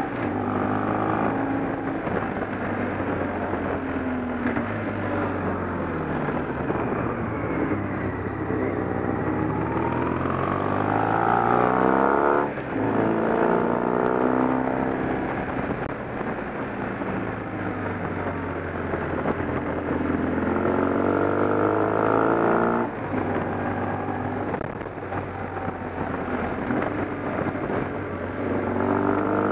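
A motor vehicle's engine running under way, its note rising and falling again and again. The note breaks off sharply twice, about twelve and twenty-three seconds in, then picks up again.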